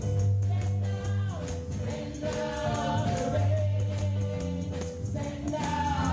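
Live gospel worship music: a choir and congregation singing over a band with a steady bass line and a tambourine shaking in rhythm.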